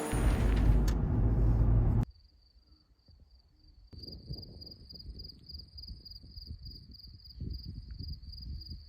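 A low rumble for the first two seconds, cut off suddenly, then after a short silence an insect's steady high-pitched pulsed trill, with irregular low rumbles under it.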